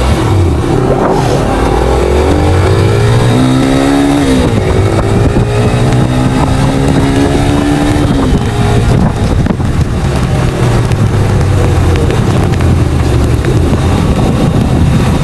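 Motorcycle engine running while being ridden, heard from the rider's seat. In the first half its pitch rises and falls a few times, then it settles to a steady run.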